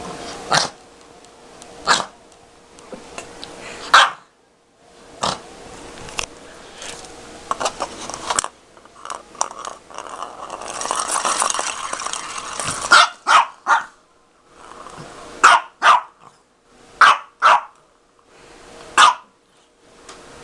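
A dog barking in short, sharp barks, some single and some in quick runs of two or three, with a longer stretch of rough, noisy sound about halfway through.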